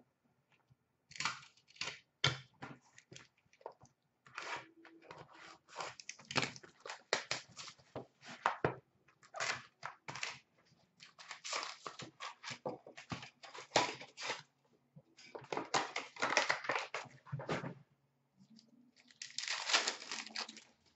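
Hands handling trading cards and a foil card-pack wrapper: irregular crinkling, rustling and card clicks, with a dense stretch of crinkling and tearing near the end as a foil pack is opened.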